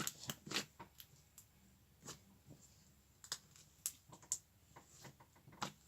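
Slime being pressed and squeezed by hand, giving off irregular small clicks and pops.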